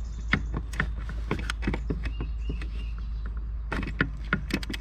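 Irregular metallic clicks and taps of a wrench being fitted and worked on a brake master cylinder mounting bolt, coming faster about four seconds in, over a steady low hum.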